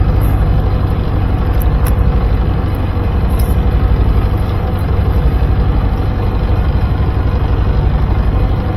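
Fishing boat's engine running steadily, a continuous low rumble with a fast, even throb.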